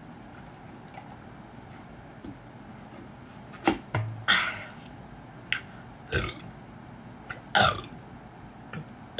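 A woman burping after drinking carbonated cola. After a quiet start come about half a dozen short burps, some close together, the loudest about four seconds in and again near the end.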